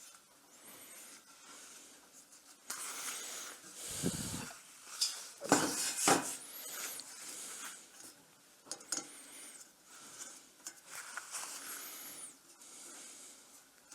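Handling noises: rubbing and rustling with a few knocks and clinks of metal, the loudest about four and six seconds in.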